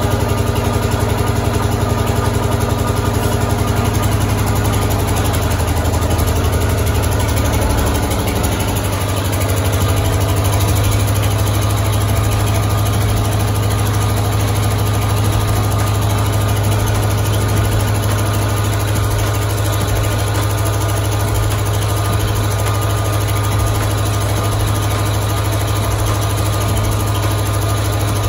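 Pump set that supplies water to a hand-turned borewell drill, running steadily at one speed with a loud, even low hum.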